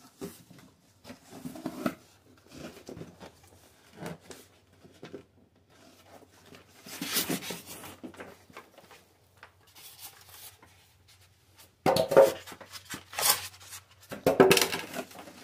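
Cardboard box flaps being opened and a plastic-wrapped headlight assembly handled and lifted out: irregular rustling and scraping of cardboard and plastic film, loudest in the last few seconds.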